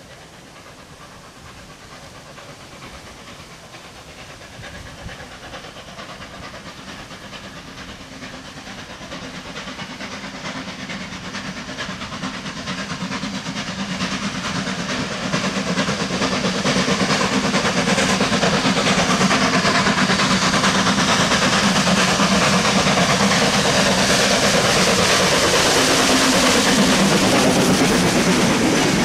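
A steam-hauled freight train approaches and passes close by, its hiss and running noise growing steadily louder over the first fifteen seconds or so. A steady low tone drops in pitch as the locomotive goes past. Goods wagons then rumble by with rattling, clicking wheels.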